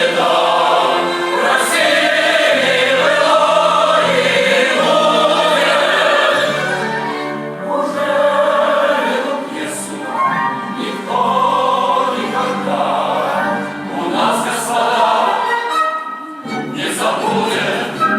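Choir singing classical-style music, with held notes that move from chord to chord.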